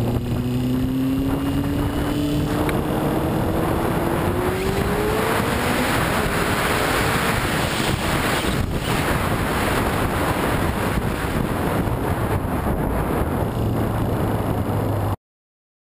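Kawasaki ZXR400 inline-four engine being revved, its pitch climbing over the first few seconds, then a steady loud rush of engine and wind noise that cuts off suddenly near the end. The owner reports a newly appeared knock in this engine.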